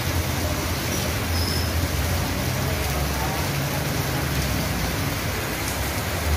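Heavy rain pouring down on wet pavement, a steady hiss with a low rumble underneath.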